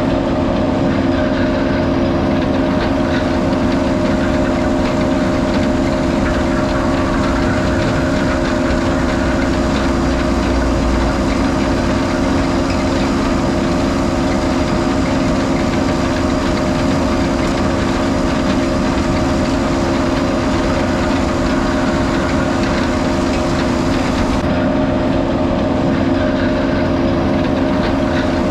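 Engine of heavy sugar beet harvesting machinery running steadily at constant speed, a continuous even drone.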